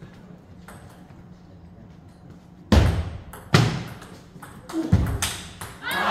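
A table tennis rally: a few sharp clacks of the ball off paddles and table, the loudest about three seconds in, in a large echoing hall. Spectators start cheering and shouting at the very end as the point ends.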